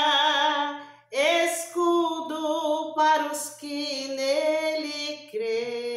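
A woman singing solo and unaccompanied, long held notes with vibrato, with a short breath pause about a second in.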